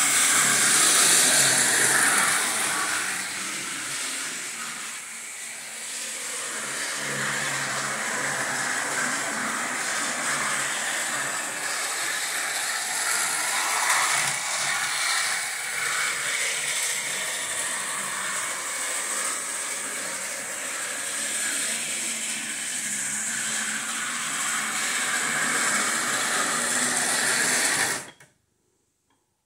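Lionel O-gauge model trains running on the layout, including a Rock Island diesel switcher: a steady mechanical whir and rattle of electric motors, gears and wheels on the track. It cuts off suddenly near the end.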